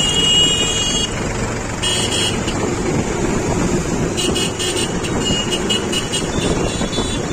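Mahindra 275 tractor's three-cylinder diesel engine running on the move, with a vehicle horn beeping over it: a held beep at the start, a short one about two seconds in, then a string of quick beeps from about four to seven seconds in.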